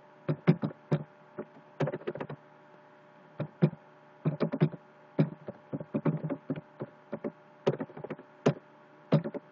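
Computer keyboard being typed on: short key clicks in irregular bursts, some single and some in quick runs, over a faint steady hum.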